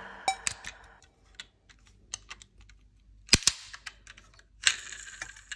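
Light, sparse clicks and knocks of diecast toy cars being handled, with a sharper double click about three and a half seconds in and a short rattle near the end.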